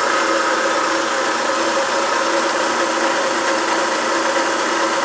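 Circa-1962 Rockwell Delta 15-inch variable-speed drill press running steadily under no load, its motor and drive giving a steady hum with a whine of several even tones.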